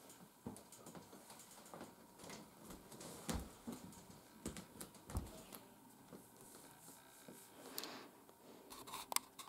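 Faint, scattered clicks and light knocks from a person moving about and handling things close by, with a couple of dull thuds about three and five seconds in.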